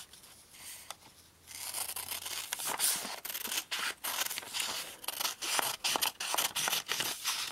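Scissors cutting a strip from a sheet of letter-size printer paper: a run of crisp snips, blade closing through the paper again and again, starting about one and a half seconds in.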